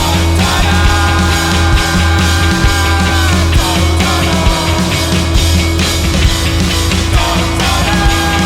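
A rock band playing live, with no vocals here. Long held lead notes slide down in pitch twice, over a steady heavy bass and a regular drum beat.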